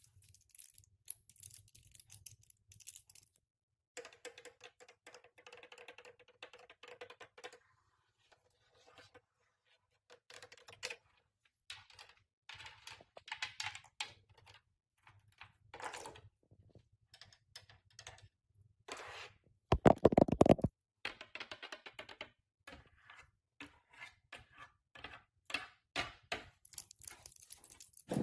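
Ornate metal nail caps tapping and scratching on a wooden door and door frame: quick, irregular clicks and short scraping runs, with a louder flurry about twenty seconds in.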